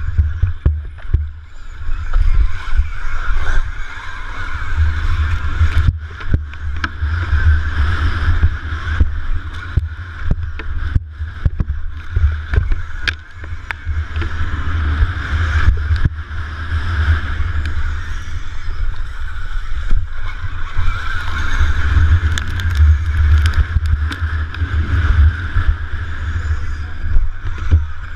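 On-board sound of an electric KTM Freeride dirt bike ridden at race pace: heavy wind rumble on the mounted camera, a whine from the electric motor and chain drive that swells and eases with the throttle, and frequent knocks from bumps and landings.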